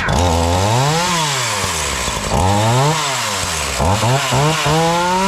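Ryobi 16-inch two-stroke chainsaw engine revving up and dropping back toward idle, twice in long sweeps, then a few quick blips and a climb back up near the end. The saw is running again after repair.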